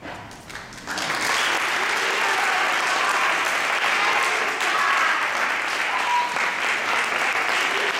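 Audience applauding, breaking out about a second in and then steady.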